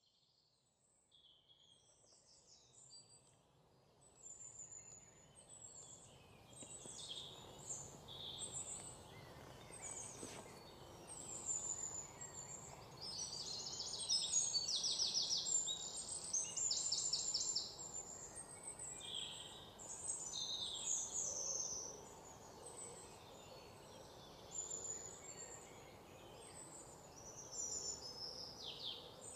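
Many birds chirping, whistling and trilling over a steady hiss of background noise, fading in over the first few seconds.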